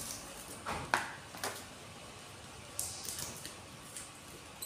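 Scissors snipping and scraping at the lid of a small plastic deli cup to open it: a few short sharp crackles, the loudest about a second in, with smaller ones around a second and a half and three seconds.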